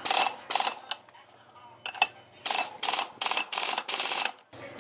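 Ratchet wrench being worked in short strokes: two strokes at the start, a pause, then a quicker run of strokes, about three a second, near the end.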